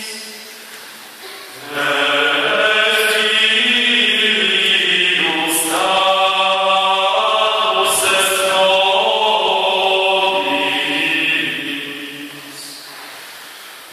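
Small male choir singing unaccompanied, in parts. A phrase dies away in the church's echo at the start, a new phrase begins about two seconds in, and it fades out again near the end.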